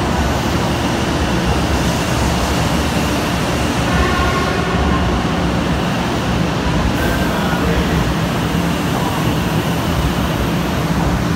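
JR West 500 series Shinkansen pulling into the station alongside the platform: a steady rumble of wheels and running gear as the train coasts in to stop.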